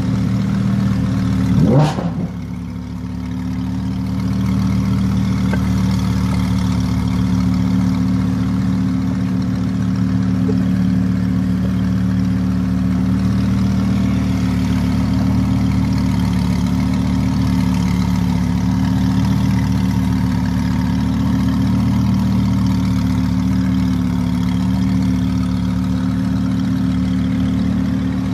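Audi R8's V10 idling steadily as the car creeps forward at walking pace, with one short, sharp throttle blip about two seconds in.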